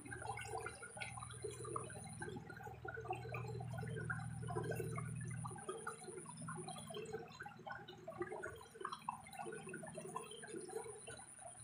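Water sloshing and gurgling in many small irregular splashes, over a low steady hum. A thin high whine comes and goes in long stretches.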